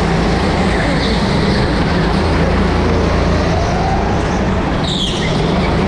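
Rental go-kart running at speed, heard from onboard with other karts close by: a steady drone, with a brief high squeal near the end.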